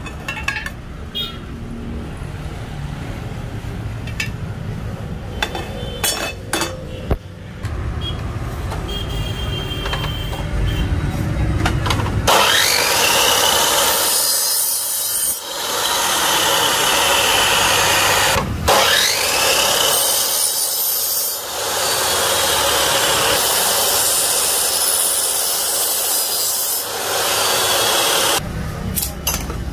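Light clicks and handling of aluminium profile sections, then an electric mitre saw started twice, each start a rising whine into a loud steady run as it cuts the aluminium profile.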